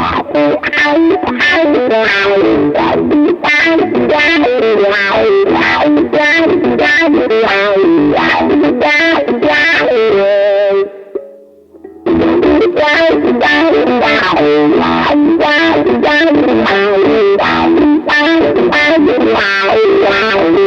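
Yamaha Revstar electric guitar played through a wah pedal with distortion: a rhythmic picked riff played in two takes, with a short pause about ten seconds in. The takes compare the tone knob's push-pull transformer engaged and disengaged.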